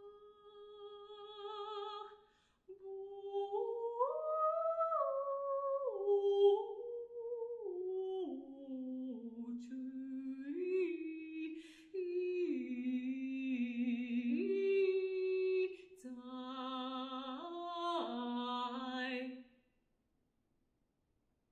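A solo alto voice sings unaccompanied in slow held notes. The line climbs briefly, then steps mostly downward, with vibrato on some notes, and stops about two seconds before the end.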